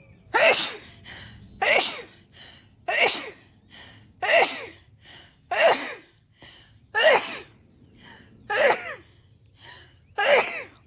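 A woman sneezing in a fit: eight loud sneezes in a row, about one every second and a half, with short quick breaths in between.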